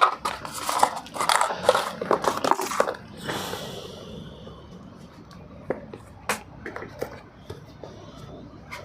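Earphone packaging being handled: dense rustling and scraping for the first three seconds, then a short hiss and a few light, sharp clicks spread through the rest.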